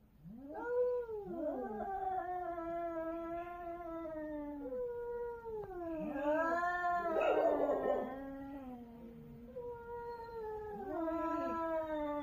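Two cats caterwauling at each other in a territorial standoff: long, wavering yowls that rise and fall, the two voices overlapping. About seven seconds in, one call turns harsher and raspier for a moment.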